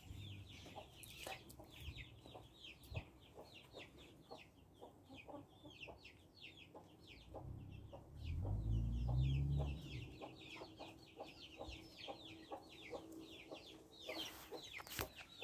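Chickens clucking, with a steady run of quick high chirps that fall in pitch, several a second. A low rumble swells about eight seconds in and fades by ten.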